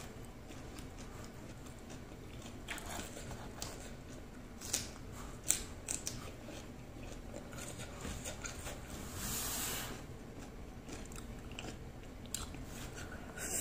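Faint sounds of a person chewing food with the mouth closed: soft, irregular wet clicks and smacks, a few sharper clicks around five seconds in, and a soft hiss a little past the middle.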